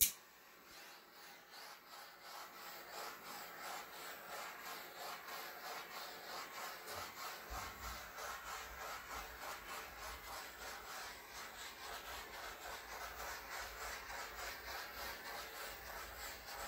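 Small handheld torch clicking alight, then hissing steadily, pulsing about twice a second, as it is swept over wet acrylic pour paint to pop the air bubbles. A low rumble joins about halfway through.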